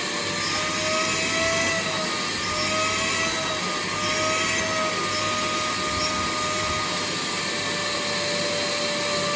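Vacuum cleaner running steadily on car seat or carpet upholstery, its motor whine wavering slightly in pitch about once a second for the first several seconds, then holding steady.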